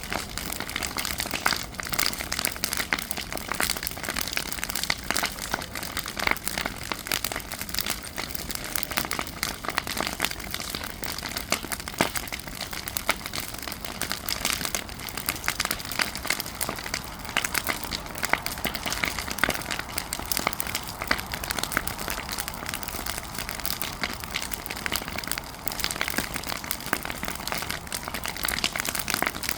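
Fire crackling: a steady, irregular stream of sharp snaps and pops.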